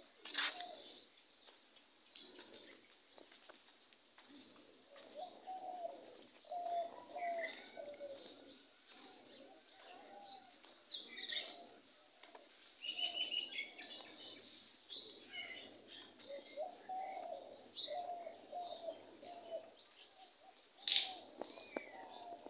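Doves cooing in repeated low rolling phrases, with small birds chirping over them. A sharp click about half a second in and a louder one near the end.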